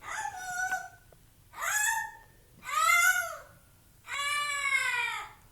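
Whistling snores: four pitched, whistle-like snore sounds, each about a second long, with a pitch that bends up and down, separated by short quiet breaths.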